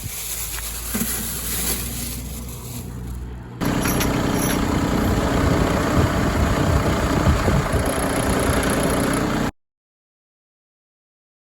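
SD1110 diesel engine of a homemade generator running at a steady speed: a low steady hum at first, then much louder from about a third of the way in. The sound cuts off suddenly near the end, leaving complete silence.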